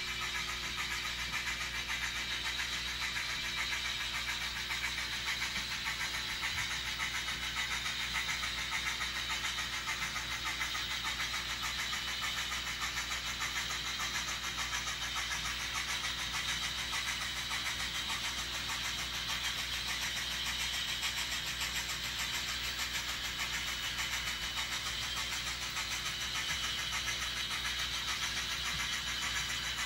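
N scale model train running along the layout's track, a steady mechanical running noise from its motor and wheels on the rails with no breaks.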